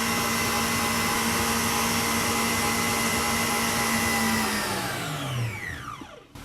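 Electric mixer running steadily as it whips aquafaba with hot sugar syrup, then switched off about four and a half seconds in, its pitch falling as it spins down to a stop.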